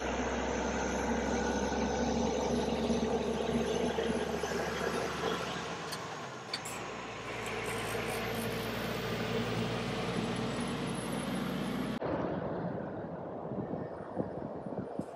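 Heavy diesel truck pulling two side-tipper trailers drives past, with a steady engine drone and tyre noise. About 12 seconds in, the sound cuts abruptly to a quieter, more distant road noise as another truck approaches.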